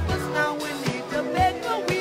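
Background music: a song with a sung vocal line over bass notes and a beat.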